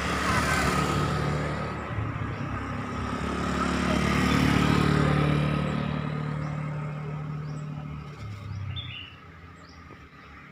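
Motor vehicle traffic passing on a road: engine sound that swells to its loudest about four to five seconds in and fades away by near the end.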